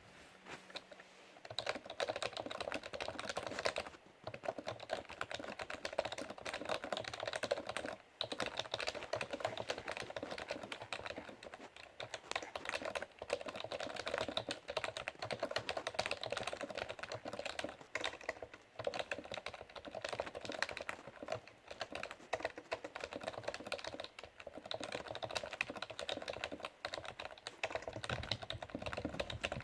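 Continuous fast typing on an old Windows 98-era NMB rubber-dome keyboard with lubricated domes: a dense run of key presses with short pauses every few seconds.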